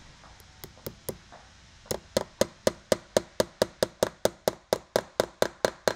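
A small hammer tapping a decorative upholstery nail through brass nailhead trim into a chair frame: a few light taps, then a steady run of about four taps a second.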